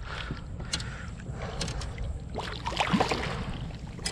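Water splashing and knocking against a kayak as a hooked redfish is worked toward the net. A steady low wind rumble is on the microphone.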